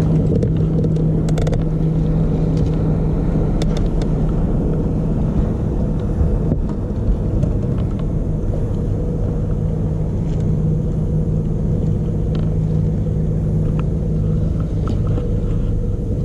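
Boat motor running steadily with an even, low hum, the boat under way. A few light knocks are heard in the first few seconds.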